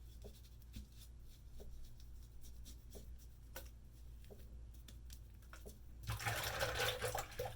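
Straight razor scraping over lathered skin in short, irregular strokes, faint at first and louder for a second or so near the end.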